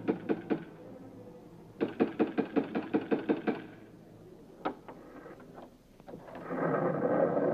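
Rapid knocking, about seven knocks a second: a short run at the start, then a longer run of about a dozen knocks, then a few single taps.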